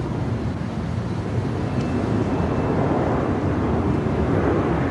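Sukhoi Su-30 fighter's twin jet engines, a loud, steady noise as the jet banks through a display manoeuvre.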